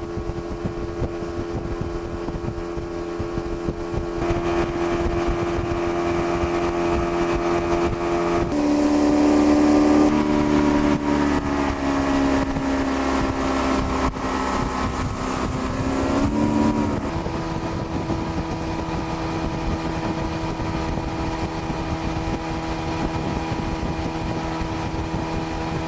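Outboard motor driving a fishing boat, running steadily. Its pitch drops and it gets louder about eight seconds in, then it returns to its earlier note around seventeen seconds in as the speed changes.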